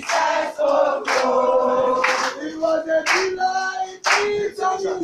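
A group of young people singing together in chorus, holding each note for about a second before moving to the next.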